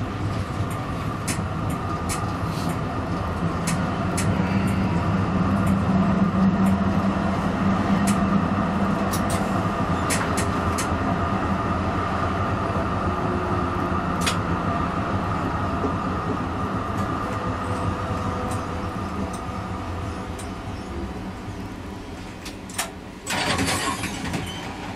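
Comeng A-class tram running along street track: a steady motor and wheel hum that swells about five seconds in and then slowly fades, with scattered sharp clicks from the wheels on the rails. A brief loud hiss comes near the end.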